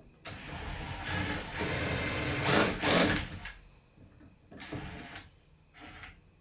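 Power drill running in one long burst of about three seconds, louder toward its end, followed by a couple of short bursts, as with screws being driven while hanging a door.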